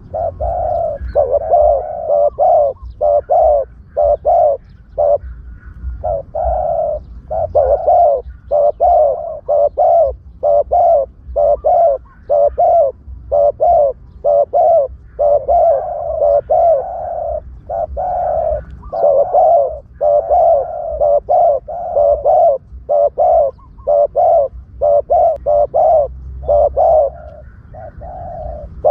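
Spotted dove cooing over and over, a run of short low coos with brief gaps between them: a decoy call meant to lure wild spotted doves. A low rumble runs underneath.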